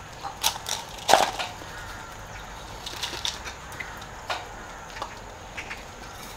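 Scattered scrapes and knocks of a hand trowel and gloved hands working potting soil in a galvanized metal tub, the loudest knock about a second in.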